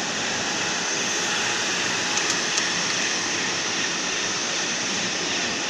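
Steady, even hiss of welding-shop machinery running, with a few faint ticks a little over two seconds in.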